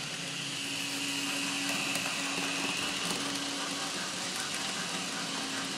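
N-scale model piggyback train passing close by: the locomotive's small electric motor whining and the wheels rolling on the rails. The sound swells over the first couple of seconds as the train nears, then eases slightly as the cars go by, over a steady low hum.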